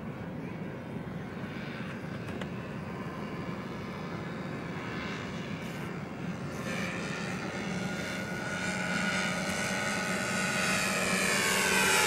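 Short Sunderland flying boat's piston engines and propellers droning on a low approach, growing steadily louder over the last half as it comes overhead.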